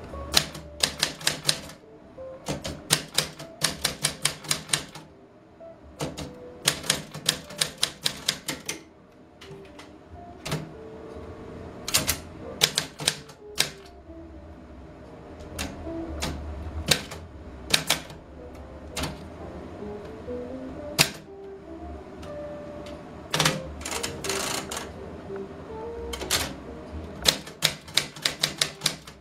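Portable manual typewriter being typed on: quick runs of sharp keystroke clacks broken by pauses of a second or two. Soft music plays underneath.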